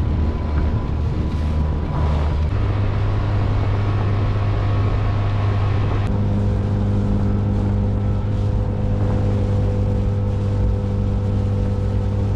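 Inflatable boat's outboard motor running under way with a steady hum, opened up to a higher, fuller note about two and a half seconds in and again around six seconds in.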